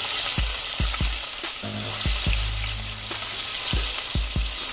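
Floured chicken pieces deep-frying in hot oil in a pot, a steady dense sizzle, with a fork prodding and turning the pieces. A hip-hop beat with deep bass kicks and held bass notes plays underneath.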